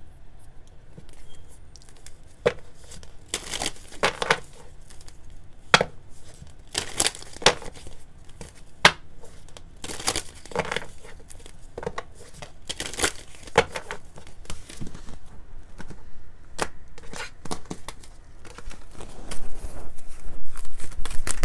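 A deck of tarot cards shuffled by hand: a string of short, irregular riffles and flicks of the cards, getting louder near the end.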